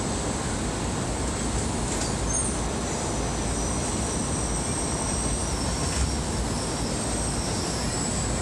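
Tōkaidō Shinkansen bullet train running into the station platform and slowing, a steady rumble of the train with a thin high whine that drifts slowly down in pitch as it brakes.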